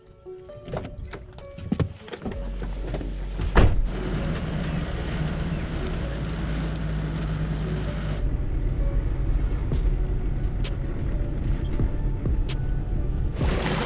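A four-wheel drive's door clicks open, then its engine starts about two seconds in and runs steadily. A loud thump, the door shutting, comes soon after the engine catches.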